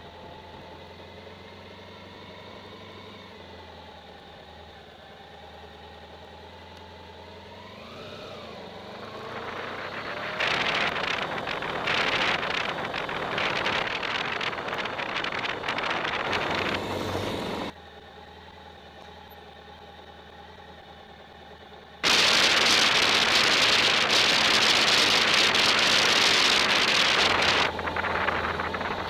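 A vehicle engine running with a steady hum that rises briefly in pitch about eight seconds in. Loud wind rushes over the microphone at speed in two long stretches, each starting and stopping abruptly, with the quieter engine hum in between.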